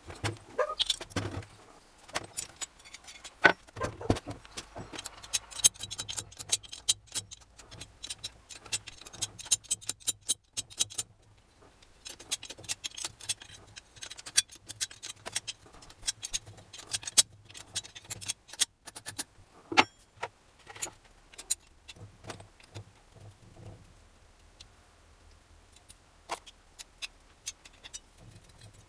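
Metal hand tools and parts of an NSU Pretis 175 engine clinking and clattering as the engine is taken apart. There are many quick sharp clinks, busiest in the first ten seconds, with a short pause and then sparser clinks. A faint low hum runs underneath.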